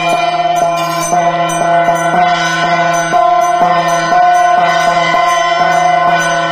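Small brass pooja hand bell rung continuously during aarti, its metallic ringing sustained with a regular clapper beat about twice a second.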